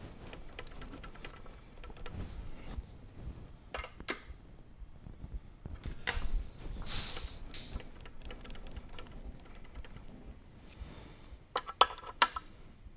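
Wrenches and hand tools clicking and clinking against metal while the drive-chain adjusters on a motorcycle's swingarm are worked, with handling noise between and a few sharp metal clicks near the end.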